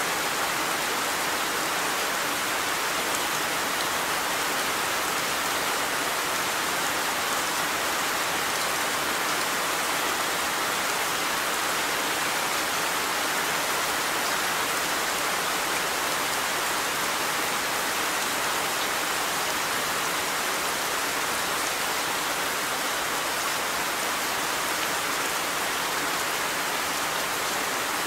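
Steady rainfall, an even hiss of rain falling on a surface with no breaks or changes.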